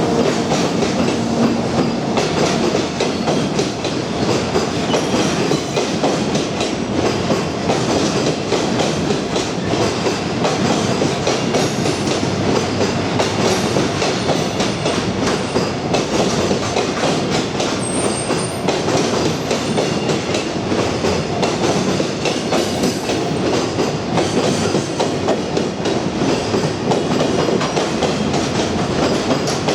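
Freight train's wagons rolling past at close range: a loud, steady rumble and rattle of wheels on rail that runs on without a break.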